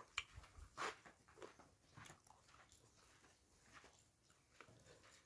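Faint chewing and lip-smacking of a person eating papaya salad: a few short wet smacks in the first two seconds, then softer, sparser mouth sounds.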